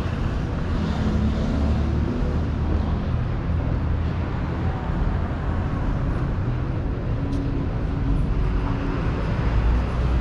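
City street traffic: a steady low rumble of car engines and tyres, with a faint engine hum. One brief high click about seven seconds in.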